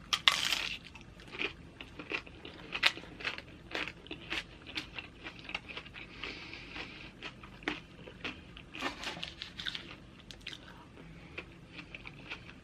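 Close-miked crunching and chewing of tortilla chips from loaded nachos: irregular crisp crunches with a loud bite just after the start.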